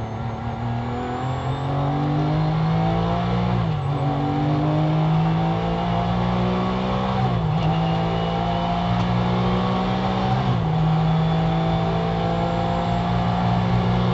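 Porsche 911 GT3's flat-six engine under full throttle, heard from inside the car: the revs climb steadily, with three quick upshifts a few seconds apart.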